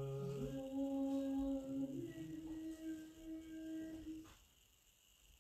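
Unaccompanied liturgical chant: the priest's intoned exclamation ends on a held low note, and a second, higher voice answers with a long sung response, the 'Amen' that follows 'unto ages of ages'. The response is held on one pitch, steps up once about two seconds in, and stops about four seconds in.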